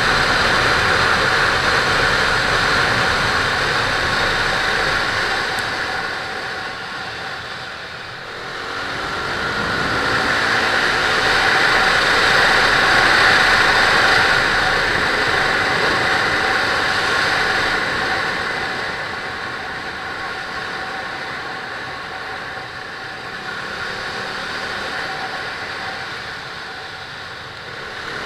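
Wind rushing over a helmet-mounted action camera while riding a KTM RC 390, with the bike's single-cylinder engine running underneath. The rush swells and eases as the speed changes, loudest in the middle.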